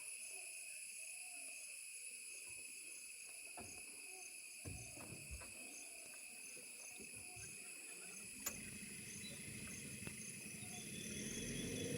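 Insect chorus of crickets with a steady, high-pitched ringing, and faint owl hoots near the start. A sharp click comes about eight and a half seconds in, and after it a low rumble grows louder toward the end.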